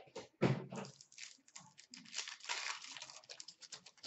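Hockey card pack wrapper being torn open by hand, with a sharp rip about half a second in, then a stretch of crinkling and rustling as the wrapper and cards are handled.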